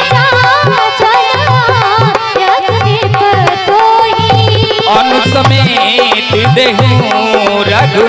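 Devotional music played live: a dholak beats a steady rhythm of deep strokes under a bending melody line with steady held notes.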